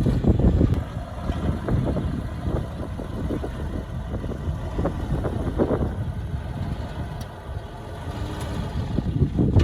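Diesel engine of heavy earthmoving machinery running with a low rumble, louder at the start, easing off for a stretch and rising again near the end.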